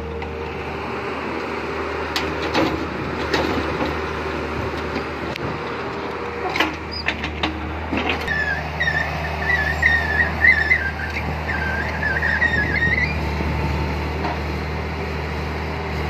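Tata Hitachi EX200 crawler excavator's diesel engine running steadily, with scattered knocks from the machine working the earth about two to three seconds in and again around six to eight seconds. A high, wavering squeal runs for about five seconds from just past the middle.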